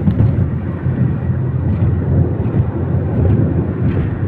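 Steady road and engine noise of a vehicle driving at highway speed, heard from inside the cabin: a constant low rumble without breaks.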